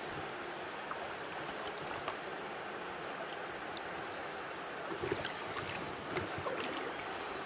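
Steady rush of flowing river water, with a few light clicks and knocks from handling the fly rod and line about five to six seconds in.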